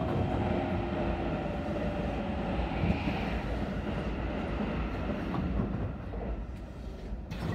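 Commuter electric train running, heard from inside the front car: a steady rumble of wheels on rail with faint clickety-clack, while an oncoming train runs past on the next track, the noise easing off a little about six seconds in.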